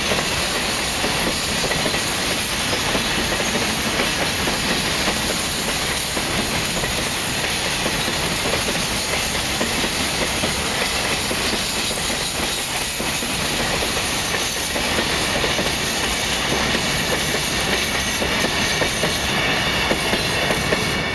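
Empty open-top coal wagons of a long freight train rolling past on the track: a steady rumble of steel wheels on the rails.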